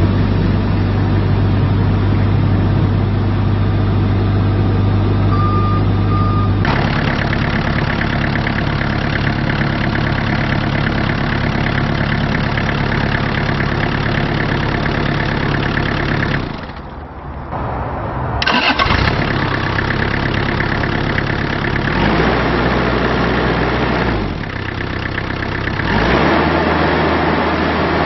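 Bobcat E26 mini excavator's diesel engine running steadily. Its sound drops away briefly about two-thirds through and comes back with a click. In the last several seconds the engine speed rises and falls.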